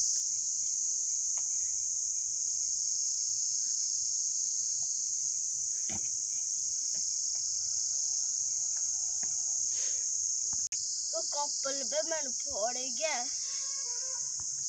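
Steady, high-pitched insect chorus of crickets or cicadas, a continuous shrill drone. A person's voice is heard briefly near the end.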